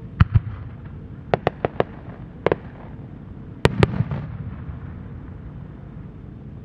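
Aerial firework shells bursting in a series of sharp reports: two near the start, a quick run of four about a second and a half in, one more, then the loudest pair near the four-second mark, trailed by a brief rumbling echo.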